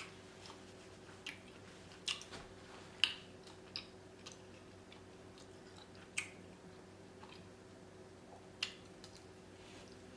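Close-up eating sounds: scattered wet mouth smacks and bites, about half a dozen sharp ones spaced a second or more apart, over a faint steady hum.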